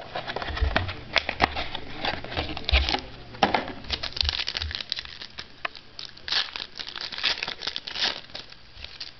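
Crinkling and rustling of trading-card packs and cards being handled, in irregular bursts.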